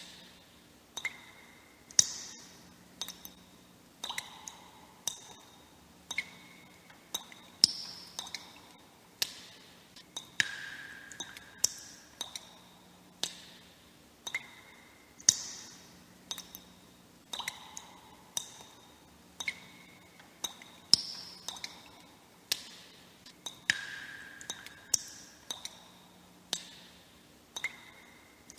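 Water drops falling one by one into water, each a short plink with a brief ringing tone. They come irregularly, about one to two a second, at differing pitches.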